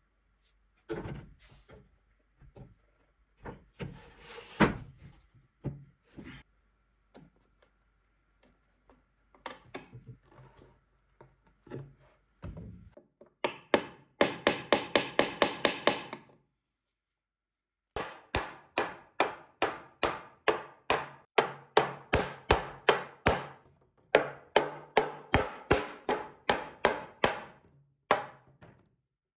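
A small hammer tapping quickly and repeatedly at metal nails in an old hardwood chest board, in long runs of sharp strikes, after a stretch of scattered knocks and handling of the wood.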